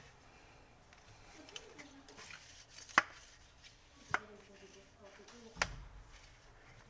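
A few sharp knocks of hard objects striking, spaced a second or so apart, the loudest about three seconds in.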